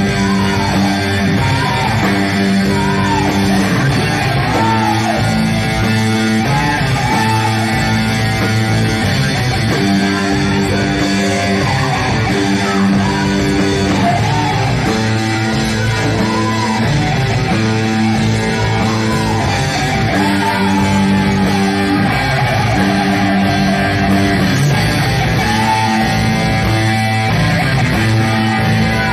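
A live rock band playing hard rock: electric guitar, bass, keyboards and drums. A riff repeats underneath while a lead line slides and bends in pitch over it.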